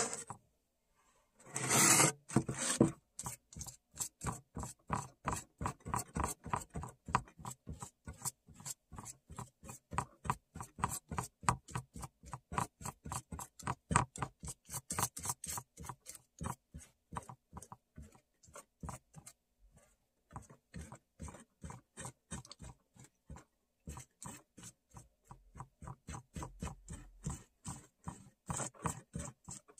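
Paintbrush dabbing paint onto a crinkled foil-covered surface: quick scratchy strokes, about three or four a second, with a louder rustle about two seconds in.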